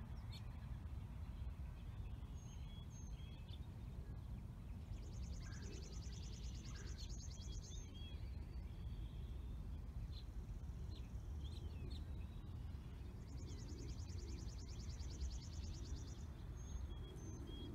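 Outdoor spring ambience: songbirds singing, with a rapid dry trill twice, about 5 and 13 seconds in, each lasting two to three seconds, and scattered chirps and short whistles, all over a steady low rumble.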